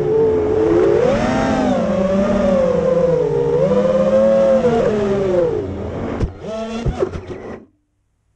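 FPV quadcopter's motors and propellers whining, the pitch rising and falling with the throttle as it banks and swoops low. Near the end a few sharp knocks as the quad comes down into the grass, then the motors cut off abruptly.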